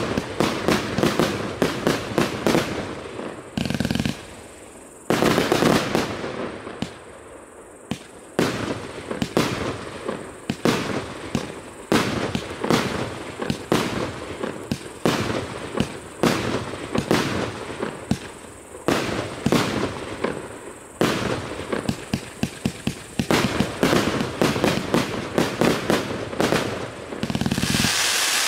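A 288-shot, 1-inch-calibre multi-shot firework cake firing in rapid succession, a dense run of launch thumps and bursts with a few brief lulls.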